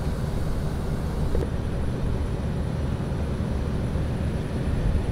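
Steady low outdoor rumble with no distinct events; the higher background hiss drops off about a second and a half in.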